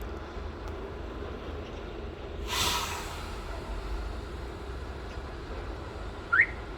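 Steady low vehicle rumble, with a short burst of hissing about two and a half seconds in and a brief rising chirp near the end.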